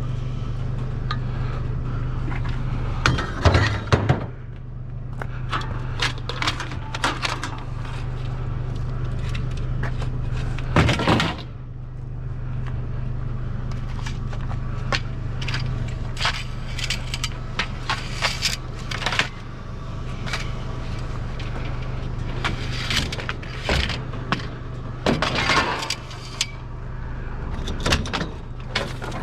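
Scrap metal clanking, clattering and rattling as it is handled and loaded, in many scattered sharp knocks, over a steady low hum.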